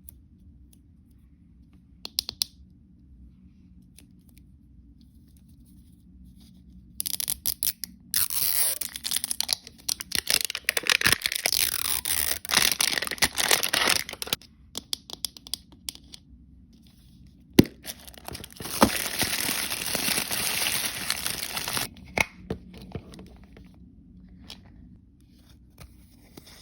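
Plastic blind-bag packaging being torn open and crinkled by hand, in two long stretches with a few sharp clicks and rustles between them.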